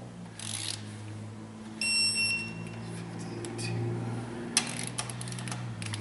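Single electronic beep from a digital torque wrench, a steady tone just under a second long, about two seconds in. Later comes a run of light metallic clicks from a socket and ratchet being handled on the cylinder head.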